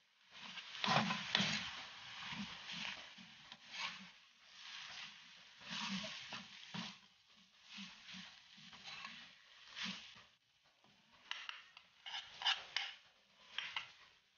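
Wooden spatula scraping and knocking against an aluminium pan as a stir-fry of bitter melon, egg and glass noodles is tossed. The strokes come in irregular bursts, with a few sharper clacks.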